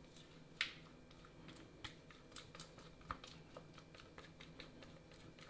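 Faint, scattered light clicks and taps as chocolate cupcake batter is poured from a measuring cup into paper liners in a muffin tray.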